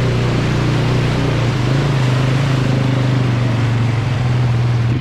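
ATV engine running steadily at a fairly even pitch, under a broad rushing noise of wind and tyres.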